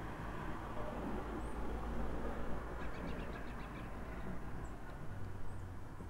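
Outdoor background with a steady low rumble, a few faint high bird chirps now and then, and a quick run of soft ticks about three seconds in.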